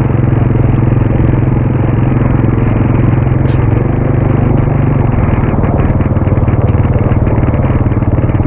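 Motorcycle engine running steadily while being ridden, a constant low hum with a fine rapid pulse.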